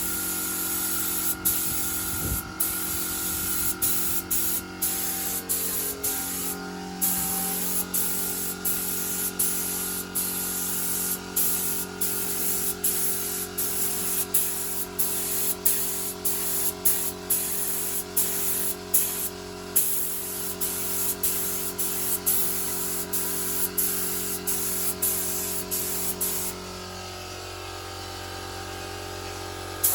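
Compressed-air spray gun hissing as paint is sprayed, in short passes broken by brief trigger releases, over a steady motor hum. The spraying stops about three seconds before the end while the hum continues.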